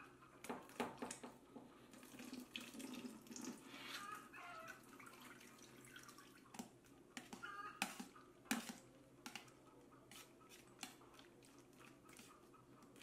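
Perforated metal spoon scraping and clinking irregularly against an enamel pot while butter is scooped out of buttermilk, with buttermilk dripping and splashing back into the churn's metal drum.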